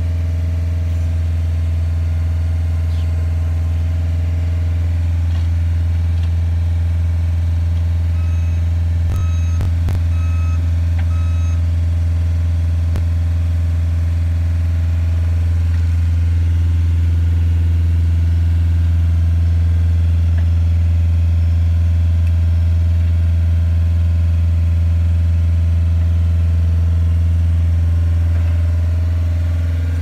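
Diesel engine of a Bitelli BB632 asphalt paver running steadily at idle. About a third of the way in there is a short run of electronic beeps, with a couple of knocks.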